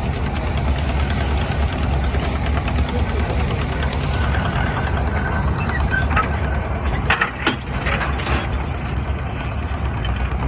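Engine of an antique Insley dragline excavator running steadily under work, with a few sharp clanks about seven to eight seconds in.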